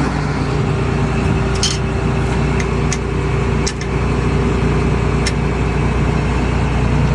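Combine harvester running steadily with a constant low hum and whine. Four short sharp clicks come from the sieve adjuster being worked with a small hand tool to open the sieve slightly.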